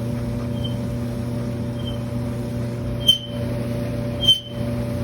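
Clothes dryer running with a steady hum, and a short high-pitched squeak about every second and a quarter that grows louder in the last two seconds. It is the squeal of a dryer drum, which the repairman puts down to a worn-out rear drum bearing.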